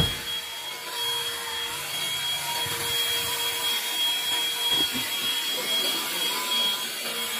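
Handheld AUTO-MATE car vacuum running with a steady whine and hiss while it is moved over car carpet, with a brief knock right at the start.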